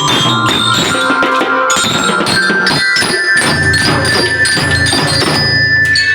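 Drum band playing: bell lyres ring out a melody over drum beats. The music stops suddenly at the end.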